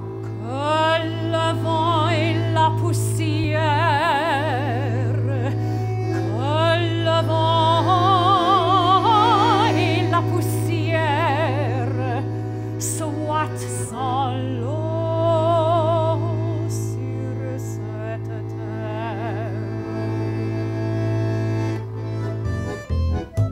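Soprano singing long phrases with wide, operatic vibrato over a sustained bandoneon chord and a low held double bass note. Near the end the held accompaniment stops and the bandoneon breaks into short, rhythmic staccato chords.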